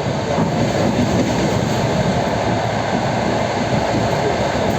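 Suburban electric train under way, wheels and running gear rumbling steadily on the rails, heard from aboard the carriage.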